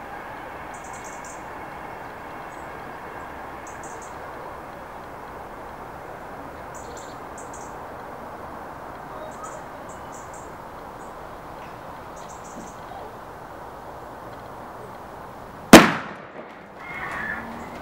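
A plastic soda bottle holding hydrochloric acid and aluminium kitchen foil bursts with one sharp, loud bang near the end, blowing apart the carved pumpkin it stands on; the acid dissolving the foil gives off hydrogen that builds pressure until the bottle ruptures. Before the bang there is only a steady outdoor background with brief high chirps.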